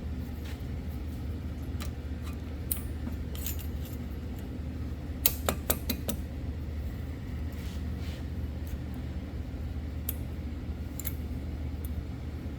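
Light metallic clicks and clinks of thin steel brake pad clips being pressed and bent into a disc brake caliper bracket, with a quick cluster of sharper clicks about five seconds in. A steady low hum runs underneath.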